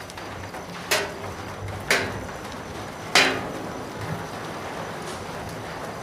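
Steady rain, broken by three sharp knocks that ring briefly, about a second apart, with the third the loudest: like heavy drips striking a hard, ringing surface.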